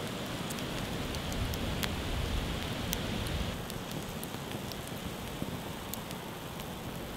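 Onions frying in oil in a small steel dish over a campfire: a steady sizzle with scattered sharp crackles and pops.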